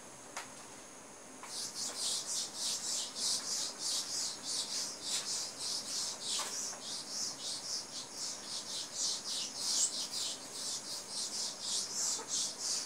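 A whiteboard eraser rubbing across a whiteboard in rapid back-and-forth strokes as the board is wiped clean. The scrubbing starts about a second and a half in and keeps up steadily until it stops near the end.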